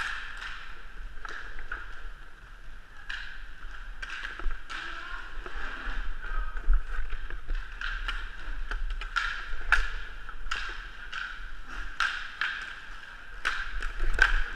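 Indoor hockey practice heard from a helmet-mounted camera: scattered sharp clacks of hockey sticks and the puck over a steady hiss of players moving on the rink floor.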